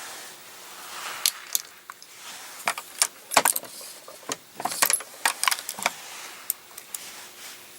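Brass 9mm Luger cases clinking and clicking, a dozen or so sharp, irregular metallic taps, as they are handled at a reloading press for resizing.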